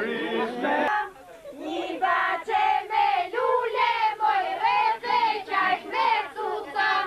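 A group of women singing an Albanian folk dance song (valle) together in high voices, with no instruments. The song comes in short, rhythmic phrases of held notes, after a brief lull about a second in.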